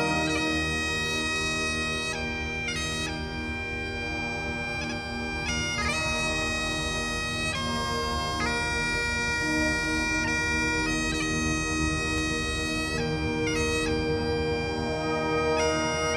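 Highland bagpipes playing a slow tune, each melody note held a second or more, over a steady drone.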